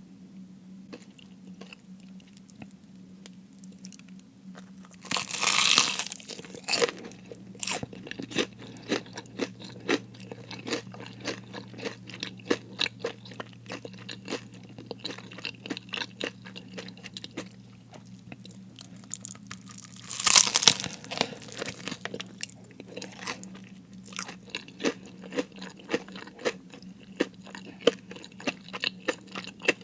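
Close-miked eating of crispy fried food: two loud crunching bites, one about a fifth of the way in and one about two-thirds in, each followed by a run of crunchy chewing. A faint steady low hum lies underneath.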